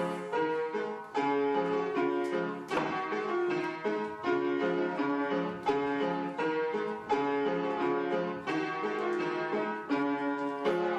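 Piano music: a melody of held notes over a steady accompaniment, played without a break.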